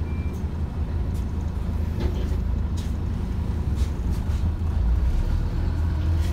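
Inside a moving Scania OmniCity bus: the diesel engine and drivetrain rumble steadily under road noise, with a few short interior rattles or knocks. It grows slightly louder near the end.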